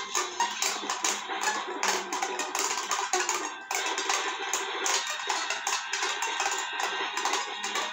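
Small toy ukulele strummed quickly and steadily, giving a thin, plinky run of repeated strokes.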